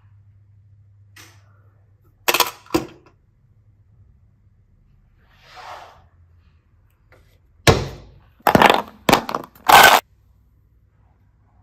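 Hard objects being handled and set down: two sharp knocks about two seconds in, a soft brushing sound midway, and a cluster of four louder knocks and clatters near the end.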